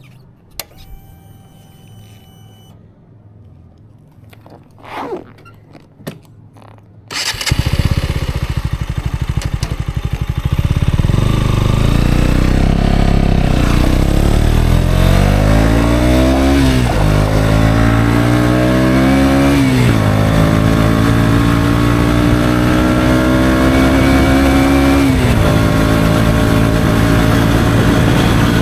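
A few quiet clicks, then about a quarter of the way in the KTM Duke 125's single-cylinder four-stroke engine with an Akrapovic exhaust starts and idles. It then revs up and the bike accelerates, the pitch climbing and dropping sharply three times as it shifts up through the gears.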